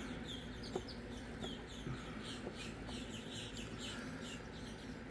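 Birds chirping in the background, a few short chirps a second, with a few faint clicks from a pick working the pins of a Master Lock 410 padlock.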